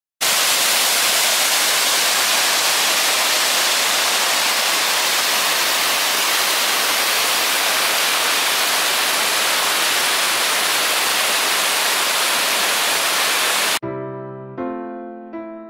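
Waterfall cascading down a steep rock face: a loud, steady rush of falling water with a hissing edge. Near the end it cuts off abruptly and soft piano music starts.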